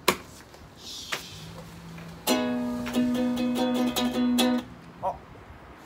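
Ukulele strummed: a few chords struck over about two seconds, starting about two seconds in and stopping sharply, after a couple of light knocks.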